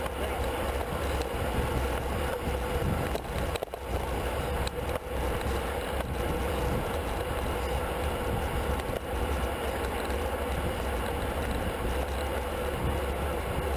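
Wind rushing over the microphone of a bicycle-mounted camera at race speed, a steady low rumble, mixed with the rolling noise of the road bikes in the pack.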